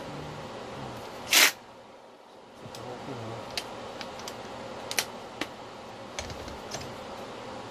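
Metal hand tools being handled on a workbench: one short, loud clank about a second and a half in, then a few light clicks as a socket and a cordless drill are fitted onto the engine's flywheel nut.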